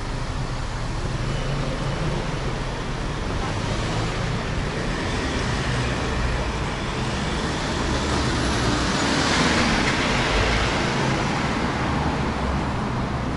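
City street traffic: vans and cars driving past close by, a steady engine rumble with tyre noise, loudest as one vehicle passes about nine seconds in.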